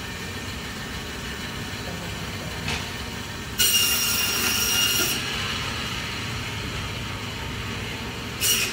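Omega Foodtech meat band saw running with a steady hum, its blade cutting through bone-in lamb with a louder high whine about three and a half seconds in for over a second, and again briefly near the end.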